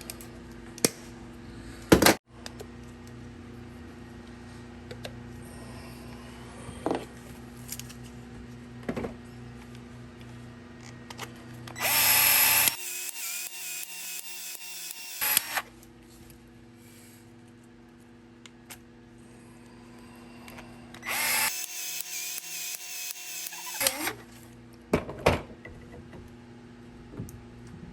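Battery-powered PEX expansion tool running twice, for about three seconds each, with a rapid pulsing as its head expands the pipe end. A sharp click comes about two seconds in, and small knocks of handling come between the runs.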